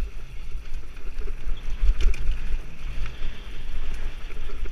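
Mountain bike riding down a dirt singletrack: wind buffeting the camera microphone as an uneven low rumble, with tyre noise on the dirt and short rattles and clicks from the bike over bumps.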